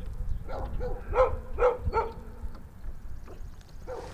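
A dog barking several times in quick succession, about five barks in the first two seconds, then stopping. A low wind rumble on the microphone runs underneath.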